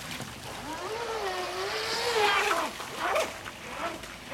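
Radio-controlled speedboat's brushless electric motor (Feigao 380S, 4500 kV on a 3-cell 11.1 V pack) whining as the boat runs across the water, its pitch wavering up and down, with a hiss of spray near the middle.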